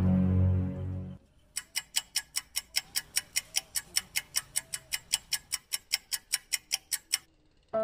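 A held chord of background music that cuts off about a second in, followed by an even clock-ticking sound effect, about four and a half sharp ticks a second, that stops shortly before the end.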